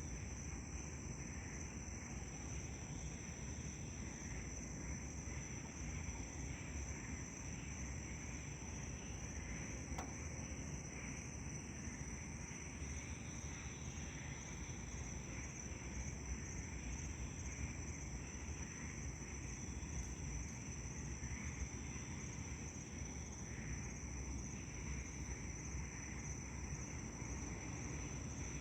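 Steady high-pitched chorus of night insects, a continuous shrill drone with a lighter fluttering trill below it, over a faint low rumble.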